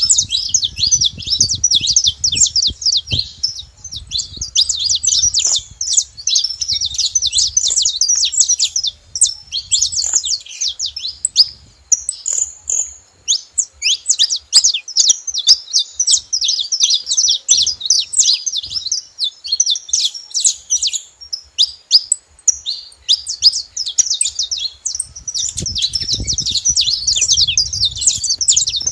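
Several saffron finches singing and chirping together, a dense, almost unbroken stream of rapid high notes with a couple of brief lulls.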